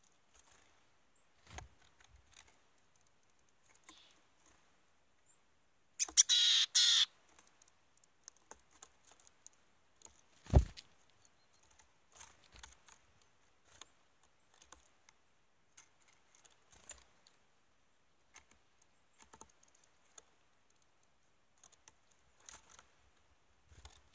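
Scattered light clicks and taps on a wooden seed feeder, with a short noisy flurry about six seconds in and a single sharp knock about ten and a half seconds in.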